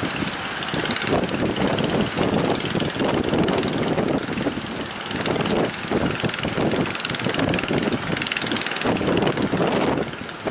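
Strong wind buffeting the microphone over the rush of breaking sea waves, loud and gusting throughout.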